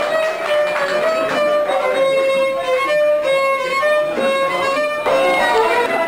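Instrumental music led by a violin playing a melody of held notes, with plucked string accompaniment.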